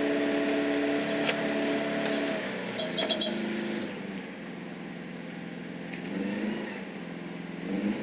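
Self-loading concrete mixer's engine running steadily under load, dropping to lower revs about four seconds in and revving up again near the end. Short sharp metallic rattles and squeaks from the loader bucket and its linkage come about a second in and again, loudest, around three seconds in.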